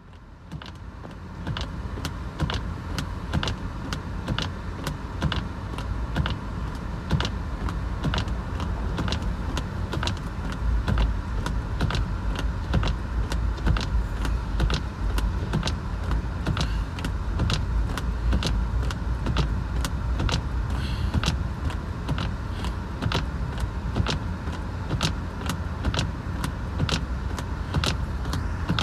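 A car on the move, with a steady low road rumble and a sharp, regular clicking about twice a second.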